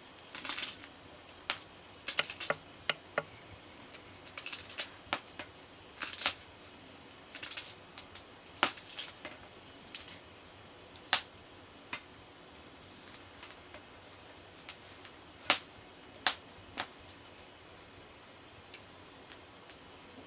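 Fresh leafy greens being picked and snapped off their stems by hand: irregular crisp snaps and clicks, with short rustles of the leaves.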